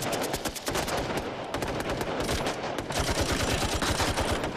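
Sustained automatic gunfire in a firefight, at about ten shots a second, with a heavier, denser burst from about three seconds in.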